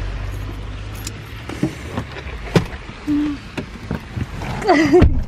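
Knocks, bumps and clicks of people climbing into a pickup truck's cab, over a low rumble that fades in the first two seconds. A short voice sounds near the end.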